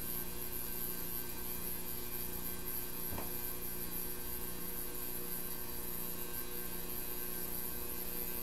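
Steady electrical hum from bench equipment, with a constant high-pitched whine over it and one faint click about three seconds in.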